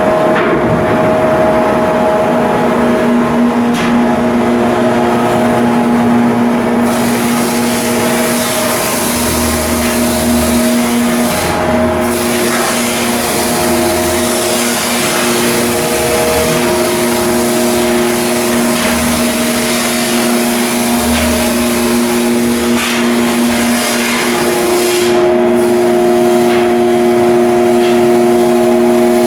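Heavy machinery running steadily and loudly, with several steady tones over a dense mechanical noise.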